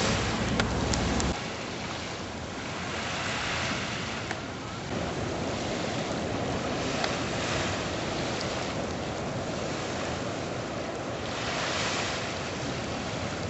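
Ocean surf breaking: a steady rush that swells and eases every few seconds. For about the first second, wind rumbles on the microphone.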